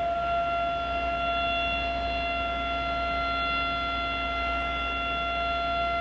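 Outdoor siren sounding, holding one steady high tone with no rise or fall.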